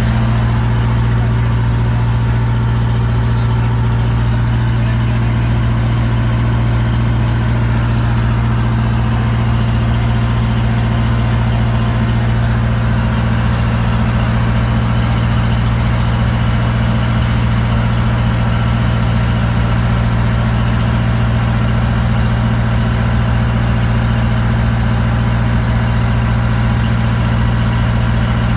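Kelotok river boat's inboard engine running steadily under way, a loud, unchanging low hum.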